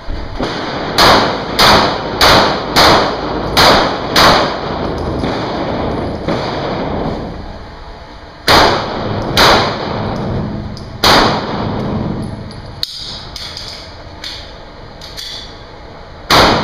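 Pistol shots in an indoor range with cinder-block walls, each with a short echo. Six quick shots come about half a second apart, then two more about a second apart, another about three seconds later, and a last one near the end.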